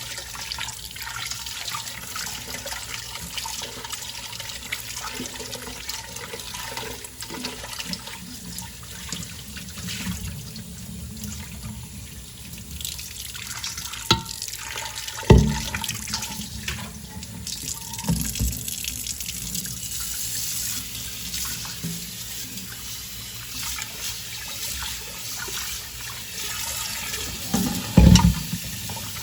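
Water running from a tap into a sink while dishes are washed, with occasional knocks and clatter of dishes. The loudest knocks come about halfway through and near the end.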